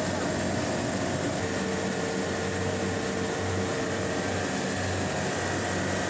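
Carrier Carlyle 06E semi-hermetic reciprocating compressor on a Carrier 30GT chiller running steadily with a low hum, started directly with its oil pressure switch bypassed.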